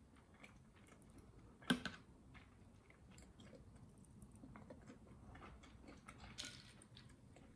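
Quiet eating sounds: faint chewing and small clicks, with one sharp clink of metal cutlery against a ceramic plate about two seconds in and a brief louder noise near the end.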